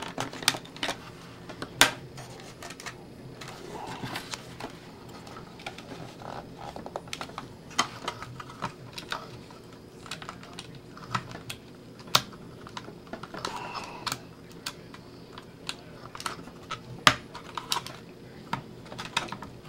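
Razor blade cutting and prying at melted plastic rivet studs on a toy RC car's plastic body and bumper: irregular small clicks and scrapes of blade on plastic, with a few louder snaps.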